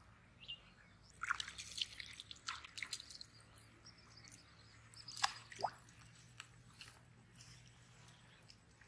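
Faint dripping and small water splashes with light clicks, as fishing rods, line and a float are handled at the edge of a pond. The sounds are scattered, bunched about a second in and again about five seconds in.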